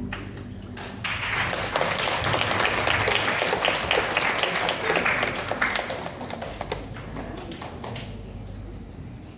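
Audience applauding: many hands clapping start about a second in, hold for several seconds, then thin out to a few last claps and die away.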